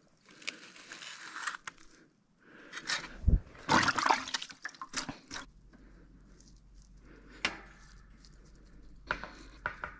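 Hands splashing and rinsing in a plastic bucket of water, loudest for a couple of seconds about three seconds in. A few light clicks and knocks follow near the end as a plastic seed tray is handled.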